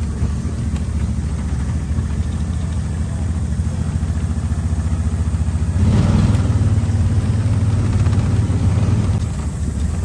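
A vehicle engine idling steadily, growing louder and fuller about six seconds in and easing back near the end.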